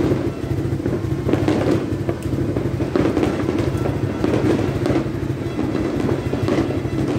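Continuous din of fireworks and firecrackers going off all around, a steady crackling rumble with a few sharper pops.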